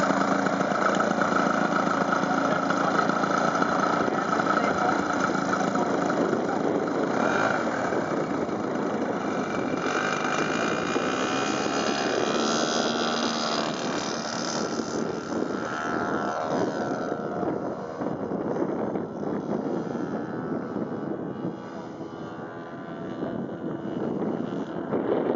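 The DLE 111 twin-cylinder two-stroke petrol engine of a large radio-controlled scale model plane drones steadily through its takeoff run and climb-out. Its pitch bends up and down as the plane passes, and the sound grows fainter as it climbs away.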